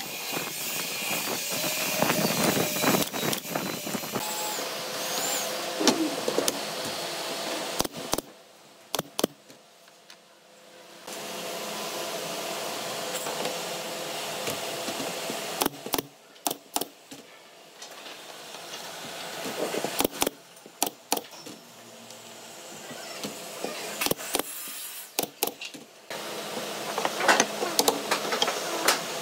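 Woodshop work on a pine slatted frame: wooden slats clattering and knocking as they are laid and fitted, with sharp snaps from a pneumatic brad nailer fastening them. A steady background noise runs under it and drops away twice.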